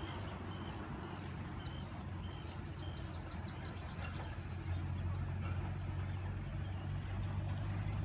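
A low steady rumble, louder from about halfway through, with a bird chirping short high notes over it in the first half.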